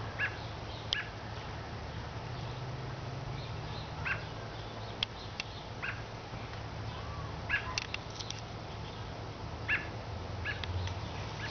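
Short, sharp animal alarm calls, single and spaced irregularly a second or more apart, over a steady low hum.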